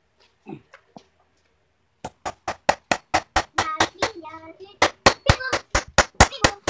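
A hammer striking the wooden frame of a sofa in a rapid run of sharp blows that starts about two seconds in, pauses briefly, and resumes near five seconds.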